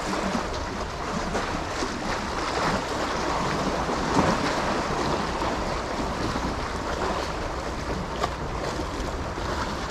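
Steady wash of sea water and wind on the microphone, with a few faint clicks.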